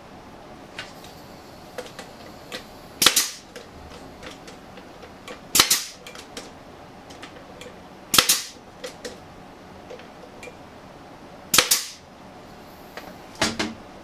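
Pneumatic brad nailer firing brads into cedar fence-picket boards: four loud, sharp shots a few seconds apart, and a fainter one near the end.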